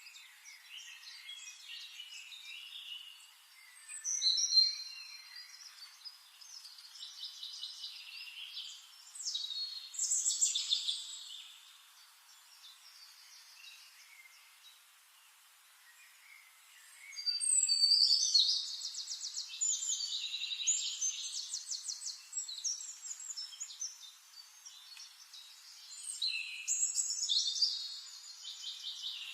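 Songbirds singing: several loud bursts of high-pitched song with fast trills, and quieter chirps between them over a faint hiss.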